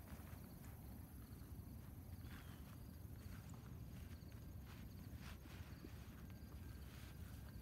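Quiet open-country ambience: a low steady rumble of wind on the microphone, with faint insects chirping and a few short chirps and clicks.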